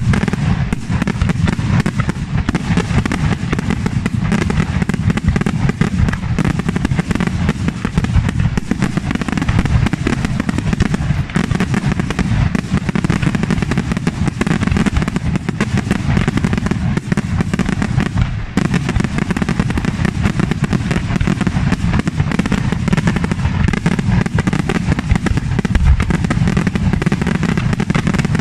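Aerial fireworks display in a dense, unbroken barrage: shell bursts follow one another so closely that the booms run together into a continuous rumble, with crackle over it.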